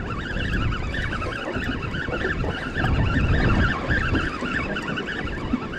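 Wind buffeting the microphone on a small boat, with water washing against the hull.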